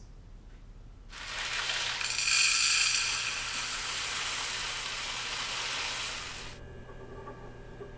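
Dry brown rice pouring from a paper bag into a rice cooker's metal inner pot: a rushing rattle of grains that starts about a second in, is loudest a second or so later, and stops suddenly near the end.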